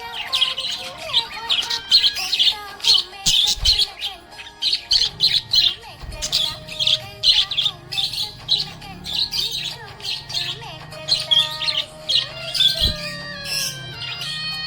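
Budgerigars chirping in rapid, continuous chatter, with music playing underneath.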